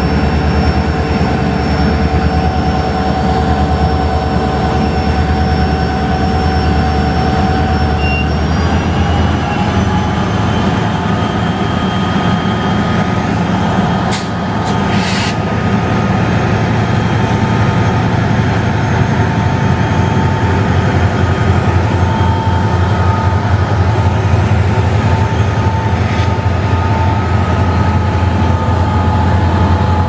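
WDG4 diesel-electric locomotive's two-stroke V16 diesel engine running hard as it moves slowly past, a deep rapid throb with a thin high whine over it. About eight seconds in, the engine note and whine rise in pitch and stay higher, and a couple of sharp clicks come midway.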